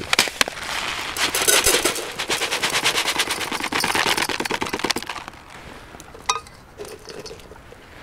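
Dry packaged rice mix poured from its paper packet into a metal camp kettle: a dense, rapid rattle of grains hitting the metal that stops about five seconds in. A single sharp click follows about a second later.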